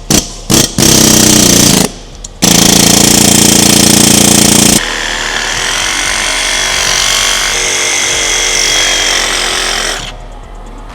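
Pneumatic air chisel hammering, splitting the worn prop shaft centre bearing off the shaft. It comes in a few short bursts, then in loud runs, and goes quieter and steadier from about five seconds in until shortly before the end.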